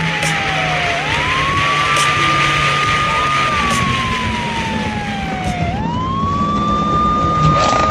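A wailing siren that climbs quickly, holds its top pitch, then falls slowly, going through this cycle twice. Under it is a steady engine drone and loud rushing noise.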